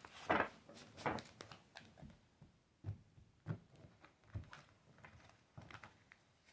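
Tarot cards being drawn from the deck and laid down on a table: a string of soft taps and short card slides spread out over several seconds.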